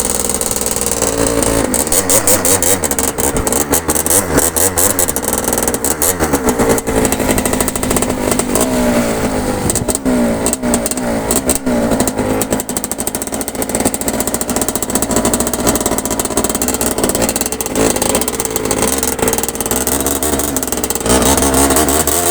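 Agrale engine being revved up and down repeatedly, its pitch rising and falling, with a rapid pulsing exhaust beat.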